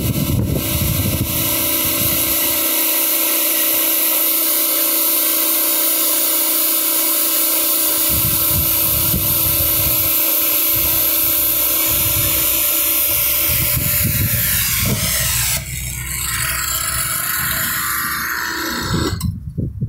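Hot-water pressure washer spraying steadily with the wand trigger held down, a loud hissing spray over the running machine. The spray stays hot with no let-up. It gets quieter about three-quarters of the way through and drops away just before the end.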